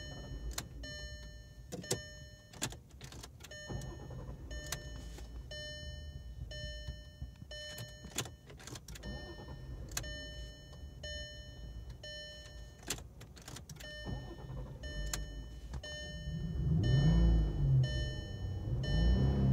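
2002 VW Jetta GLI's dashboard warning chime repeating about once a second, with scattered sharp clicks from the ignition as the key is tried on a hot no-start where the starter does not turn. Near the end a louder low engine sound rises and falls twice.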